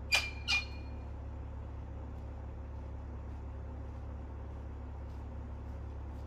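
Two sharp metallic clinks close together just after the start, with a brief ring, as a galvanised steel field gate's latch is worked open, over the steady low hum of the INEOS Grenadier's engine idling.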